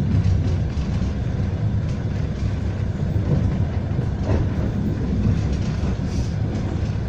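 Passenger train running along the track, heard from inside the carriage: a steady low rumble of wheels on rails with a few faint knocks.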